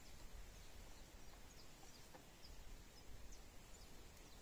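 Near silence: faint outdoor ambience with a few short, high bird chirps scattered through it.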